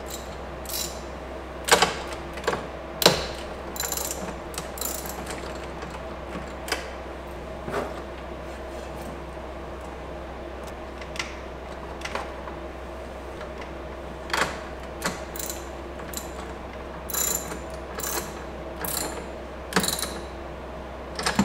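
Irregular sharp clicks and light knocks of wiring and a small hand tool being handled while a power lead is fastened to the car battery's positive terminal, over a steady low hum.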